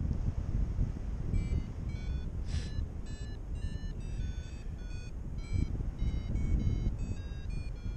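Paragliding variometer beeping in quick short tones that jump in pitch, the sign of the glider climbing in lift. The beeps start about a second and a half in, over steady wind buffeting the microphone.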